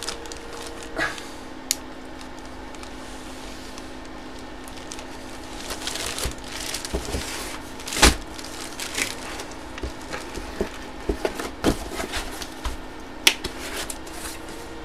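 Cardboard box and packaging being handled: rustling with scattered knocks and taps, the loudest about eight seconds in, over a faint steady hum.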